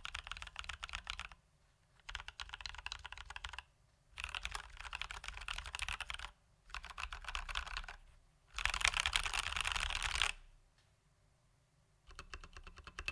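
Typing on a Leopold FC980M mechanical keyboard with Durock T1 tactile switches lubed with Krytox 205g0 and stock keycaps. Fast keystrokes come in runs of one to two seconds with short pauses between, the loudest and longest run about nine seconds in.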